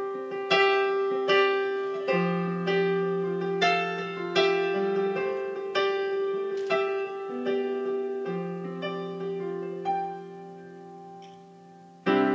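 Yamaha digital piano playing a slow solo introduction: a melody over held low notes, a new note or chord struck every half second or so and each fading away. It dies down to a quiet held chord, then a fresh loud chord comes in near the end.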